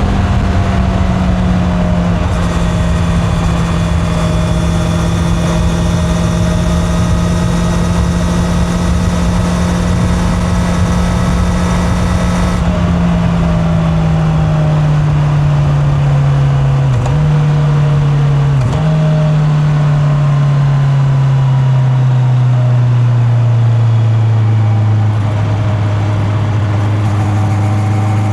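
Honda CB650R inline-four motorcycle engine running under way, with wind rush. The note holds steady, then falls gradually as the bike slows. There are two brief breaks in the note about 17 and 19 seconds in, and the wind fades near the end. It is heard from a mic in the rider's back pocket.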